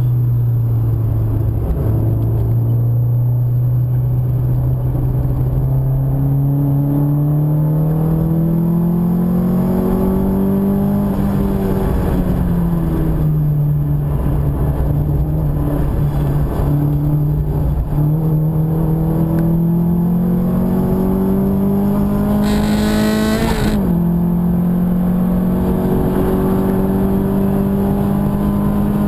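Car engine heard from inside the cabin while lapping a circuit, its note climbing slowly under acceleration, falling away about eleven seconds in, then climbing again. Around two-thirds of the way through the pitch flicks up and drops to a lower note, with a short burst of hiss at the same time, over steady road noise.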